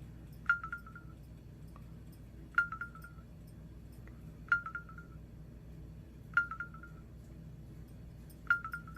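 A short, high chirp with a quick stutter of fading repeats, sounding five times at an even pace of about once every two seconds, over a faint low hum.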